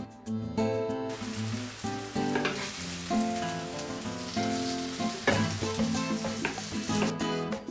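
Thin slices of döner meat sizzling as they fry in oil in a pan, stirred and turned with a wooden spatula, with a few short scrapes. Sizzle starts about a second in and drops away near the end. Background music plays throughout.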